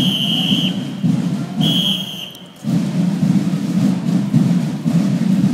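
A shrill whistle blast ends about half a second in, and a second shorter blast sounds around two seconds in, over a marching band on parade. After a brief dip, a steady low rumble runs on.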